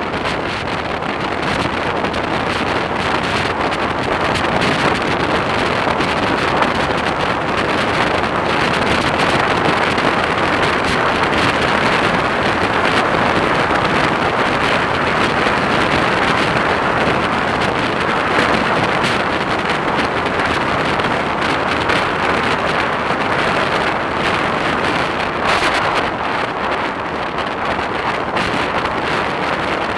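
Steady wind noise on the microphone of a camera on a motorcycle riding at road speed, a constant rushing with no distinct engine note.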